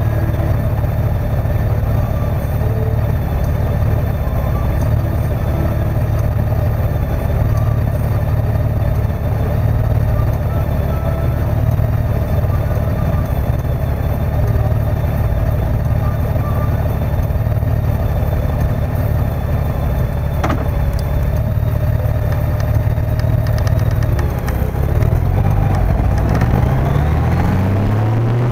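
Motorcycle engine idling steadily in traffic, then revving up as the bike pulls away about 25 seconds in, the pitch climbing.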